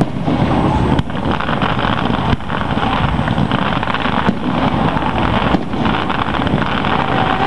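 Aerial fireworks bursting overhead, heard as a loud, continuous rumble with a sharp crack about a second in.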